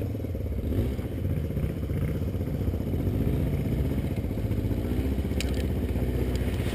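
Sport ATV engine running steadily at low revs, its pitch wavering a little, with a couple of brief clicks about five and a half seconds in.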